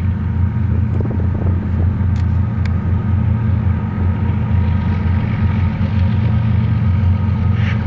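Union Pacific freight train's diesel-electric locomotives running, a steady low engine rumble with a faint steady whine above it.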